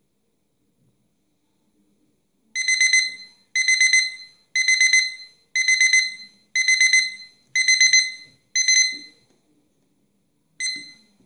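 Piezo buzzer of a digital kitchen countdown timer sounding its alarm: seven bursts of rapid high-pitched beeping, about one a second, starting a couple of seconds in and then stopping. A single short beep with a faint click comes near the end.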